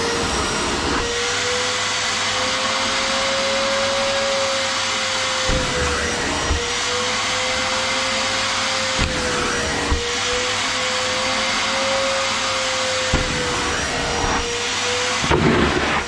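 DeWalt 38-litre wet and dry vacuum running as a wet vac, its steady motor whine wavering slightly in pitch over a loud rush of air. The sound shifts briefly several times as the nozzle is pushed over a soaked mat, sucking up the water.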